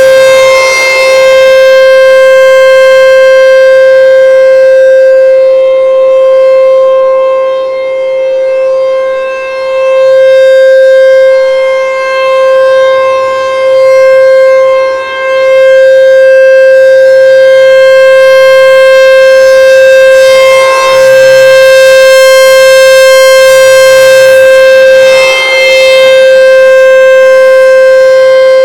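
ASC T-128 rotating electromechanical outdoor warning siren sounding the steady alert signal: one very loud, unwavering tone with strong overtones. Its loudness dips briefly now and then.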